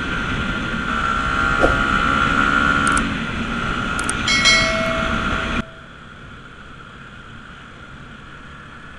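An added intro sound effect: a steady whooshing bed with a few sharp clicks and a ringing bell chime, which cuts off abruptly about five and a half seconds in. It leaves steady wind and road noise from a moving motorcycle.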